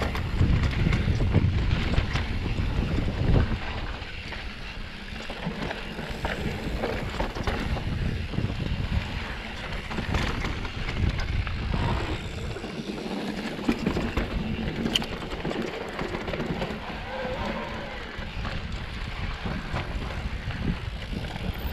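Specialized Turbo Levo e-mountain bike riding over a rough trail: steady rumble and rattle from the tyres and bike, with wind on the microphone.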